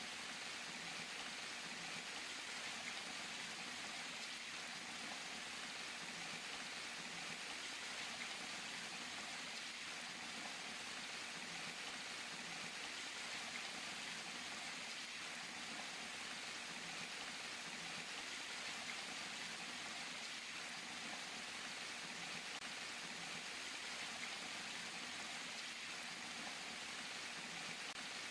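Water falling and splashing in a steady, even rush that does not change.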